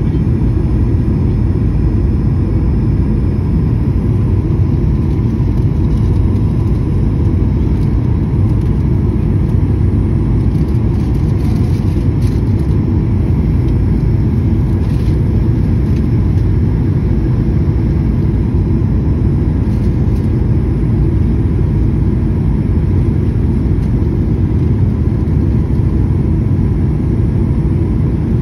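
Airliner cabin noise in flight: a steady low rumble of jet engines and airflow past the fuselage, heard from a window seat.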